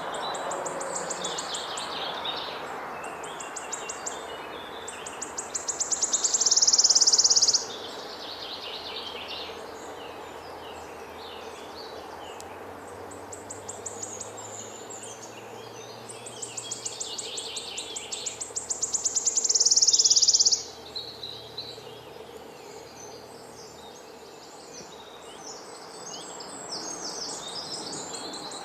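A songbird singing a long phrase of rapid high notes that quickens and swells into a loud buzzing trill, then breaks off abruptly. It does this twice, and starts again near the end, over steady outdoor background noise.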